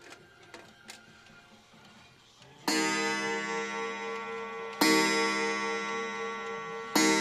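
German-movement mechanical pendulum wall clock striking the hour on its single-tone chime. After a few faint clicks, three loud ringing strokes come about two seconds apart, each ringing on as it fades: the opening strokes of a nine-o'clock strike.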